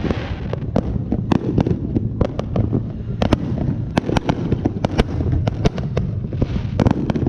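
Fireworks going off nonstop: many sharp, irregular bangs and pops, several a second, over a steady low rumble.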